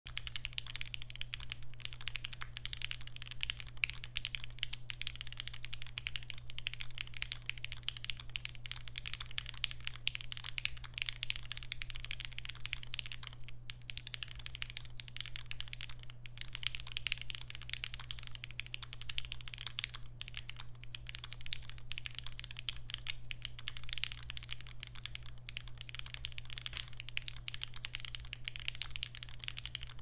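Continuous typing on a Singa Kohaku mechanical keyboard fitted with lubed and filmed Gateron FC switches on a carbon fiber plate: a rapid, unbroken stream of bright, clacky keystrokes that pauses briefly a couple of times. A steady low hum runs underneath.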